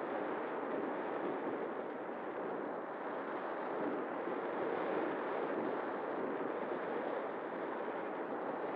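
Steady rush of air over the onboard camera's microphone on an RC glider in flight, a constant even roar with no breaks.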